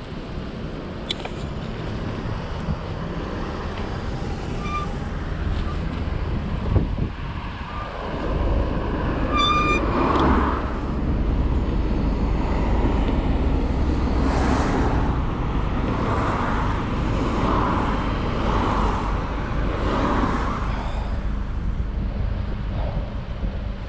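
Wind rumbling on the microphone during a bicycle ride, with road traffic passing, the passes swelling and fading one after another from about ten seconds in. A brief high-pitched tone sounds about nine seconds in.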